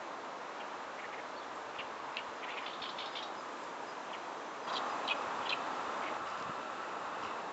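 Oriental reed warbler singing: scattered short, high chirping notes over a steady background hiss that gets louder a little past halfway.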